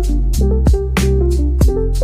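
Background music with a steady beat: regular drum hits over sustained keyboard-like notes and a deep bass.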